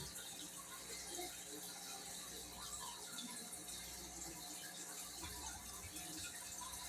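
Faint, steady trickling and bubbling of water circulating in a home aquarium.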